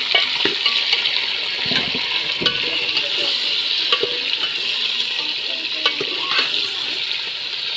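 Raw chicken pieces sizzling as they fry in hot ghee with browned onions in an aluminium pot, while a steel spoon stirs them and clicks against the pot now and then.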